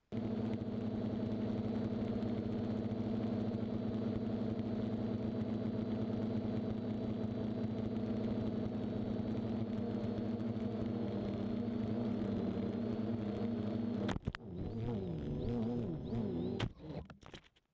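Electric motor and propeller of an FPV model aircraft buzzing steadily, heard through the onboard camera. About fourteen seconds in there is a sharp impact, then the pitch wavers and knocks follow as the aircraft tumbles in a crash, and the sound cuts off suddenly.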